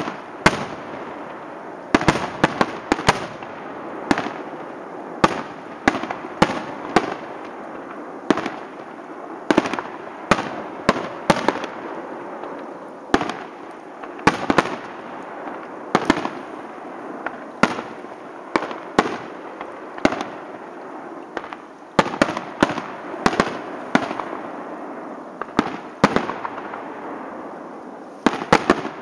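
Aerial firework shells bursting in rapid succession: sharp bangs every second or two, often several in quick clusters, with steady noise between them.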